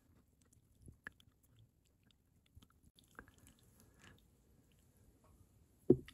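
Faint, close handling sounds of fingers twisting dubbing onto fly-tying thread at the vise: a few soft clicks and rubs, then a short low thump near the end.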